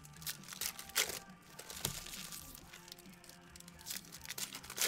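Trading-card pack wrappers crinkling and tearing as packs are ripped open, with a few sharp crackles.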